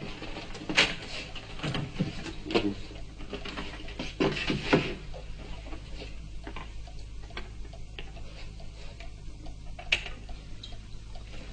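Handling noises at a record player: a few knocks and clicks in the first five seconds, then quieter fiddling and a sharp click about ten seconds in, as a vinyl record is set on the turntable and the tone arm placed on it. A steady low hum runs underneath.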